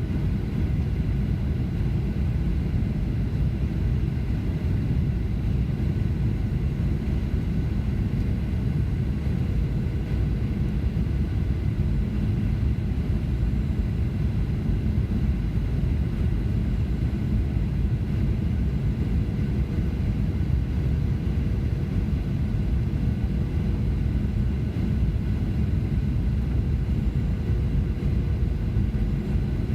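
Steady low rumble of engine and airflow noise inside a Boeing 737-900's passenger cabin, with a few faint steady tones above it and no sudden bumps.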